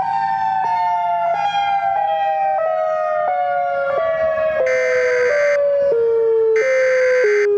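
A two-tone hi-lo siren, switching pitch about every two-thirds of a second, sinks steadily in pitch. Past the halfway point, two harsh screeching data bursts about a second long come in over it, like the SAME header tones that open an Emergency Alert System tornado warning.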